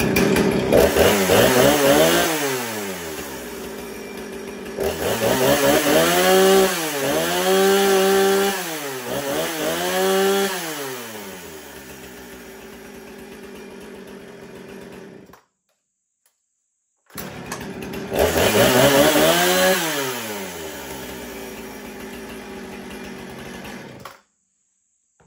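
Husqvarna 455 Rancher two-stroke chainsaw running: revved, dropping to idle, blipped up three times, then idling until it cuts off abruptly. After a short silence it runs again, revs once, idles and cuts off near the end.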